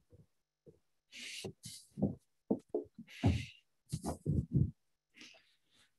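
Faint voice in short broken fragments, cutting in and out between dead-silent gaps, like quiet speech picked up off-mic.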